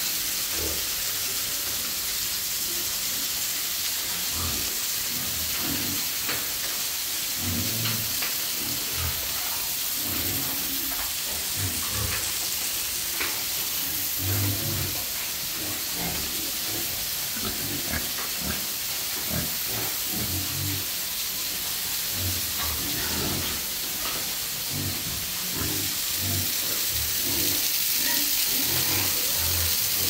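Domestic pigs grunting in short, low, irregular bursts over a steady hiss.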